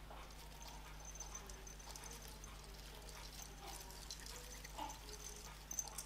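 Quiet room with a steady low hum and scattered faint light clicks and rustles from a hand hanging an ornament on an artificial Christmas tree, with one slightly sharper click near the end.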